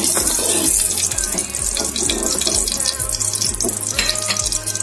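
Steady hiss from a hot aluminium wok on the stove as a little cooking oil that had frozen solid melts in it, with a few light clinks of a metal ladle against the pan. Background music with an even beat plays underneath.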